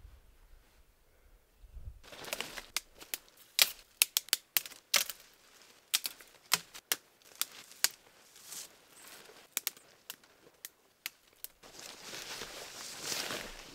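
Wood fire crackling: irregular sharp pops and snaps, some loud, with a couple of seconds of steady rushing noise near the end.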